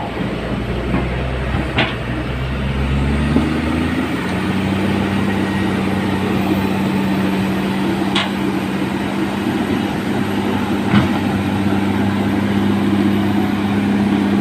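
Heavy earthmoving machine's diesel engine running, picking up speed about four seconds in and then holding a steady higher note, with three sharp clanks along the way.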